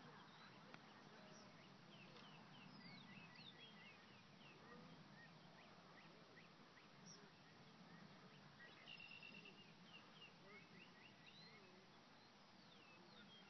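Faint outdoor ambience of many small birds chirping and calling on and off, over a low steady hum.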